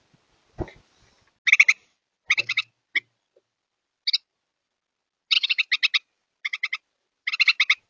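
Short bursts of fast, chattering animal calls, about nine pulses a second, with a few single chirps in between.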